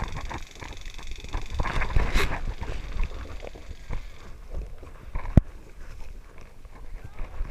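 Footsteps and the rustle of kit and undergrowth as a player walks, in uneven low thumps, with one sharp click about five seconds in.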